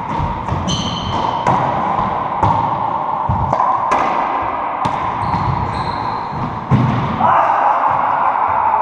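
Racquetball rally in an enclosed court: the hollow rubber ball cracks off racquets and walls about once a second, each hit echoing, with brief high squeaks of court shoes on the hardwood floor.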